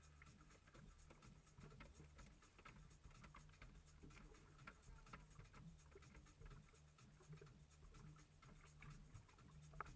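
Faint, irregular scratchy ticking of fishing reels being cranked, over a low steady hum.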